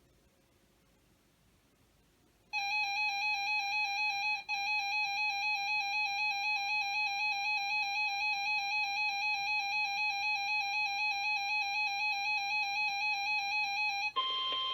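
Weather radio alert alarm: a loud, buzzy warbling tone that pulses about four times a second, starting after faint radio hiss and breaking off briefly once. Beneath it the steady 1050 Hz NOAA Weather Radio warning tone comes in faintly, and it is heard alone near the end.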